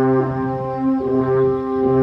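An ensemble of alphorns playing together, holding long, sustained notes in harmony, with the notes shifting to new pitches a couple of times.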